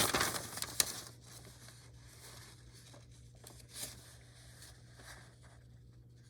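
Rustling and crinkling of packaging being handled during an unboxing, loudest in the first second with a sharp click, then soft, occasional rustles.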